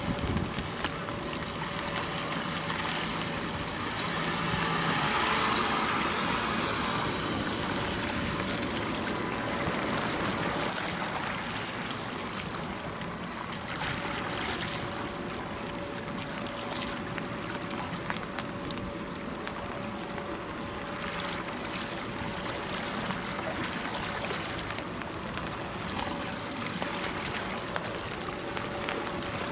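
Jetfoil fast ferry running foilborne past at speed: a steady rushing of water jet and spray with a thin steady whine underneath, swelling a few seconds in.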